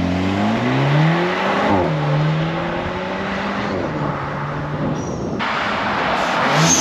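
Cupra Formentor accelerating on its stock exhaust. The engine note climbs, drops at an upshift about two seconds in, holds steady, then drops again near four seconds. A louder rush of road or wind noise comes in after about five seconds.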